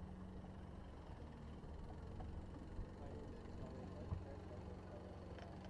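Low, steady hum of a bass boat's electric trolling motor holding the boat slowly along the shore, with two light knocks about three and four seconds in.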